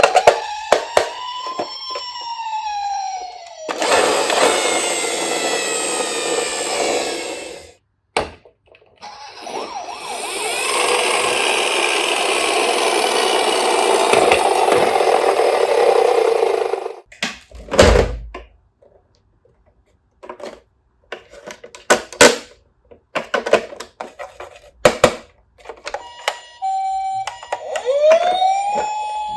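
Toy ambulance siren wailing up and down. Two long stretches of loud rushing noise follow, then a heavy knock and scattered clicks, and the wail starts again near the end.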